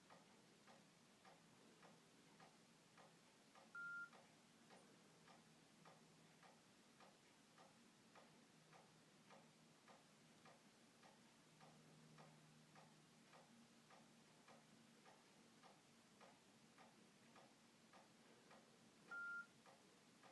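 Faint, steady ticking at about two to three ticks a second, with a short high electronic beep about four seconds in and again near the end.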